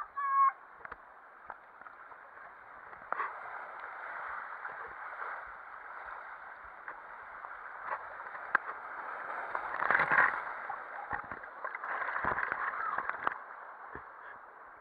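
Water rushing and sloshing along a plastic water slide as a rider slides down it. The sound is muffled and swells and fades, with scattered knocks of the body against the chute and a short pitched yell right at the start.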